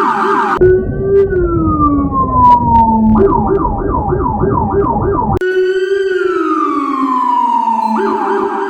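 Police bus siren sound effect played in a series of altered variations that cut abruptly from one to the next: a fast warble, a long falling wail over a heavy distorted rumble, a quick yelp repeating about three to four times a second, another long falling wail, then the fast warble again.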